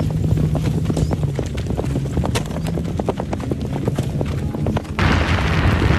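Horses' hooves striking a sandy track at a canter, a quick uneven run of hoofbeats over a low steady hum. About five seconds in, the hoofbeats give way to a rush of wind on the microphone.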